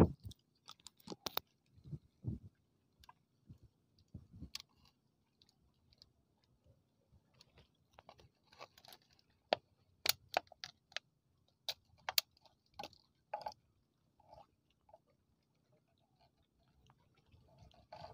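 Hands handling a plastic water bottle and small fishing tackle: scattered soft plastic crinkles and sharp little clicks, at irregular moments with short quiet gaps between.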